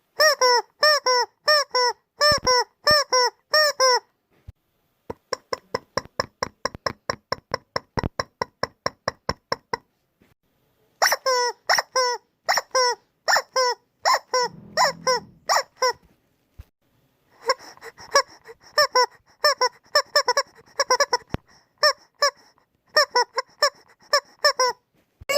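Rubber chicken squeezed over and over, giving short, pitched, honking squawks in quick runs of a few per second, with brief pauses between the runs.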